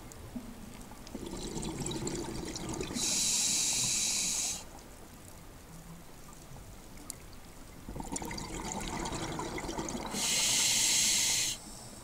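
Scuba diver breathing through a regulator underwater: two breaths about seven seconds apart. Each is a low bubbling rush that ends in a loud hiss of about a second and a half.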